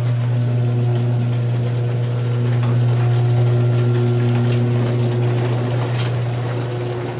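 Electric garage door opener motor running with a steady low hum as the overhead door rises, with a few faint ticks.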